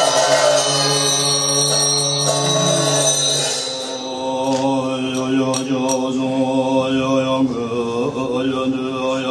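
Tibetan Buddhist monks chanting in unison: a steady low drone with a slowly wavering line above it. Over the first few seconds this is mixed with a music track that fades out about four seconds in.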